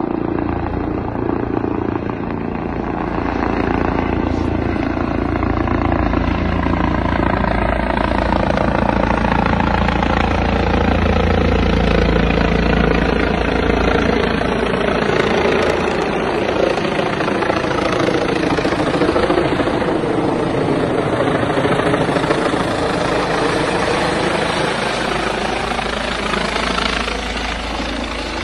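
Rescue helicopter flying low overhead, its rotor and turbine noise loud and continuous, with a slow sweeping shift in tone as it moves past and comes round.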